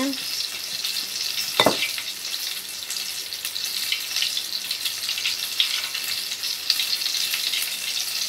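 Chicken pieces frying in hot oil: a steady sizzle with dense crackling, and one sharp knock about a second and a half in.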